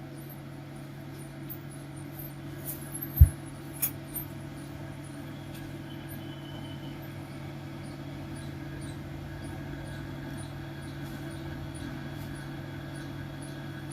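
Steady hum of a desktop PC running, with its CPU and case fans spinning. About three seconds in there is a single low thump, and a sharp click follows just under a second later.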